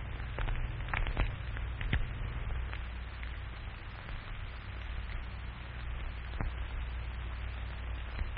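Surface noise of an old 1940s film soundtrack: a steady low hum and hiss with scattered crackles and pops, thicker in the first two seconds.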